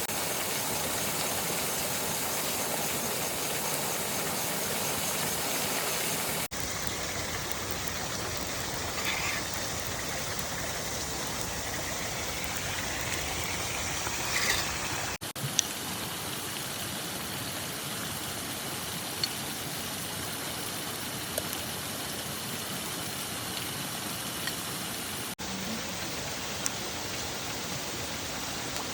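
Steady rushing noise with a few faint, sparse clicks, broken by three abrupt cuts.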